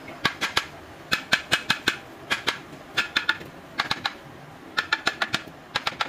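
Steel hand hammer tapping on the cast timing-gear housing plate of a Daewoo bus diesel engine, in quick runs of three to seven light metallic knocks with short pauses between.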